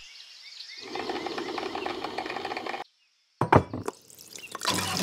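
Geese honking faintly, fading out in the first second, then a steady mechanical whir that cuts off suddenly into silence. A few sharp clicks follow, and near the end coffee is poured from a glass carafe into a mug.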